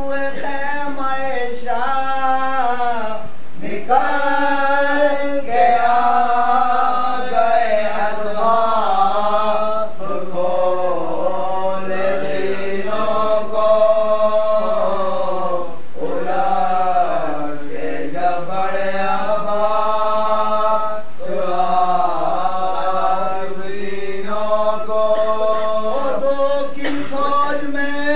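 Group of men chanting a Muharram salam without instruments: a lead voice with several others joining in unison, in slow melodic lines with long held notes that slide between pitches.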